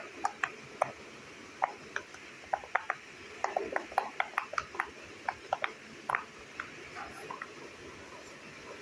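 Silicone pop-it fidget toy having its bubbles pressed in one after another by fingers: a quick, irregular run of small pops that thins out after about six seconds.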